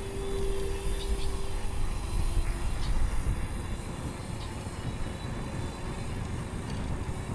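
Steady low rumble of wind and road noise on the microphone during a bicycle ride, with a faint steady hum that fades out about two and a half seconds in.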